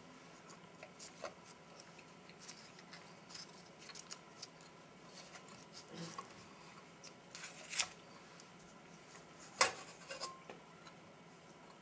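Hands handling MRE food packaging and wheat snack bread on a stainless steel tray: scattered light crinkles, taps and clicks, with two sharper clicks a couple of seconds apart near the end.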